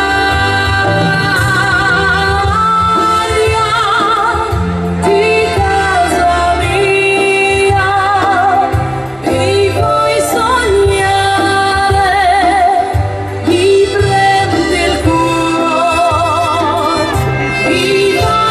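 A woman singing a ballad into a stage microphone, holding long notes with a wide vibrato, over amplified keyboard accompaniment with sustained bass notes.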